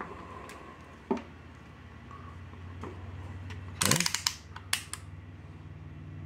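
Klein Tools MM325 multimeter's rotary selector dial clicking through its detents as it is turned to the DC amps range. A few scattered clicks are joined by a quick run of them about four seconds in, over a steady low electrical hum.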